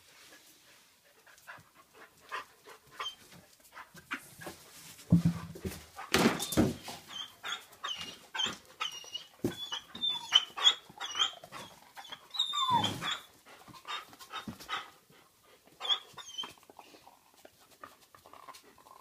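Dogs whimpering and whining in many short, high-pitched squeaks, thickest from about 8 to 16 seconds in, mixed with scuffling and light knocks.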